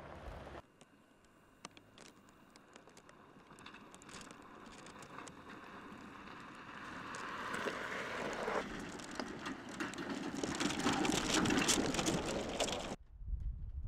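Tyres of a Ford Bronco SUV crunching over a gravel and rock trail, with many small pebble clicks and crackles, growing steadily louder as it drives closer. The sound cuts off abruptly about a second before the end, leaving a low rumble.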